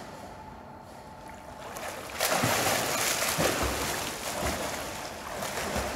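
A freestyle swimmer surfacing from an underwater push-off and starting to swim. About two seconds in, loud splashing begins from the arm strokes and kick, with heavier slaps roughly once a second as the arms enter the water.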